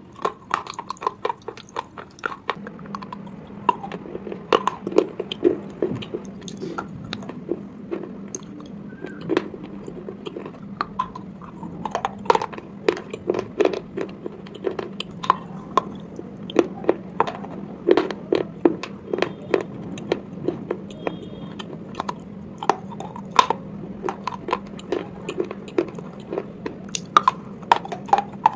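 Close-miked chewing of slate pencil pieces, with many sharp, irregular crunches as they are bitten and ground between the teeth. A low steady hum runs underneath.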